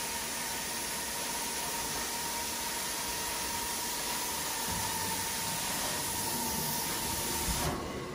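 Carpet-cleaning extraction wand (a Sapphire wand) pulled across carpet: a steady rushing hiss of suction air and water through the wand and hose, with a steady whine under it. Both cut off abruptly near the end.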